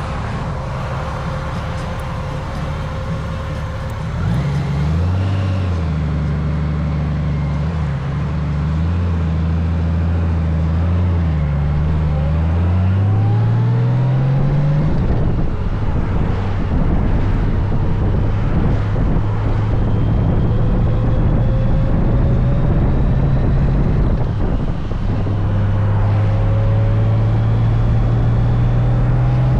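Honda Gold Wing motorcycle engine pulling away and accelerating, its note climbing and dropping with each gear change, then settling into a steady run at speed under a constant rush of road and wind noise, climbing again near the end.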